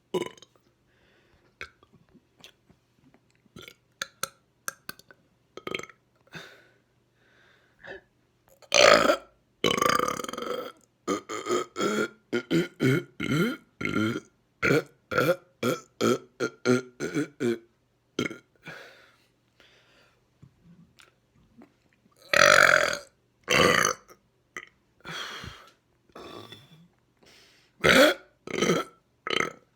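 A person burping repeatedly, bringing up trapped air. After a few faint sounds, two loud burps come about nine seconds in, then a quick run of short burps at about two a second. A pause follows, then more loud burps in the second half and a few near the end.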